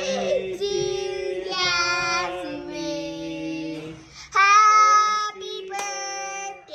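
A child singing in long, drawn-out held notes, the loudest a little past halfway through.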